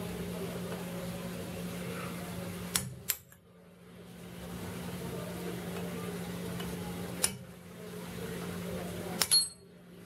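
Sharp metal-on-metal strikes, a hammer hitting a punch to drive cut-off screw stubs out of the cast vise body. There are about five strikes in all: two close together a few seconds in, one in the middle and a quick pair near the end, over a steady low hum.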